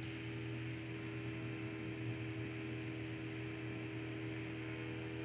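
Steady electrical hum with a faint hiss underneath, unchanging throughout: the background noise of the recording setup.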